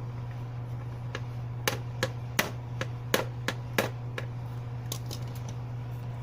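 A tool cutting at the plastic knockout tabs of a sprinkler controller case: a run of sharp clicks and snaps, loudest between about one and a half and four seconds in, then a few fainter ones.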